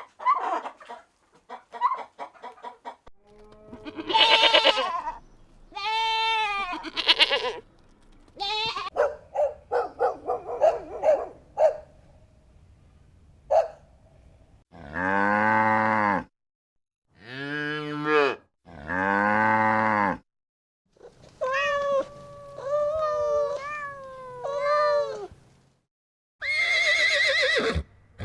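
A series of farm animal calls, bleats and moos, each one to two seconds long with short gaps between them, some deep and some higher and wavering.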